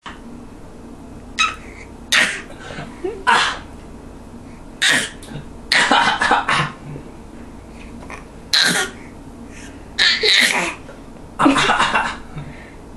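A small child's put-on coughs, imitating an adult's cough: short coughs, some single and some in quick runs of two to four, a second or more apart.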